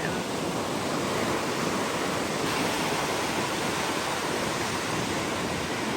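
Surf breaking and washing ashore, a steady rushing wash with some wind on the microphone.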